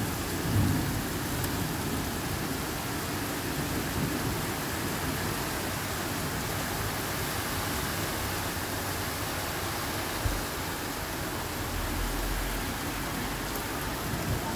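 Heavy rain pouring steadily, an even hiss with no letup, with a brief low rumble near the end and a single short knock a little before it.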